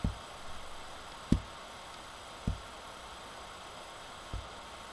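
Four soft, low clicks a second or two apart over a steady faint hiss: presses on the lecturer's computer mouse or keyboard as she advances the presentation slide's lines one by one.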